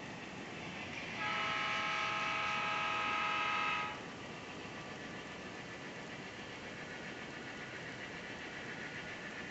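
EMD GP9 diesel locomotive sounding its multi-tone air horn in one steady blast of about two and a half seconds, starting about a second in. A steady rumble of the running locomotive continues underneath.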